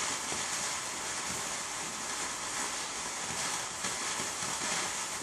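Garden firework fountain spraying sparks with a steady hiss.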